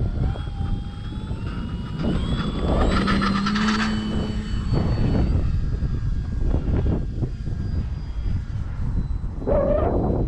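Electric motor and propeller of an E-flite Cherokee RC plane whining as it throttles up for a takeoff into the wind, the pitch rising over the first few seconds and then holding before fading away. Heavy wind rumble on the microphone underneath.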